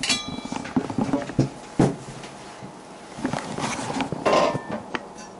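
Knocks, clicks and rubbing as a camera is handled and set down on a wooden table, with a short ringing clink at the very start and two sharper knocks just under two seconds in.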